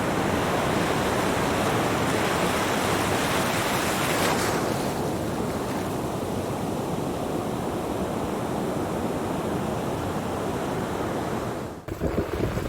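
Ocean surf: a steady rush of waves washing in, brighter for the first four seconds and then softer. Near the end it breaks off suddenly into a choppier sound of wind buffeting the microphone.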